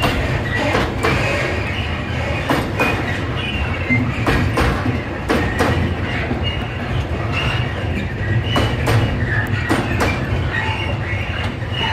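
Freight train of container flat wagons rolling past slowly: a steady low rumble with wheels knocking over rail joints at irregular intervals and short, high wheel squeals.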